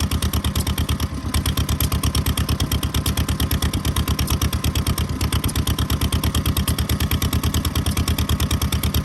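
Daikin DS-type two-cylinder kerosene engine running steadily, with quick, even firing beats and a brief dip about a second in.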